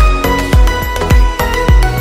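Music with a steady deep drum beat, nearly two beats a second, over held notes.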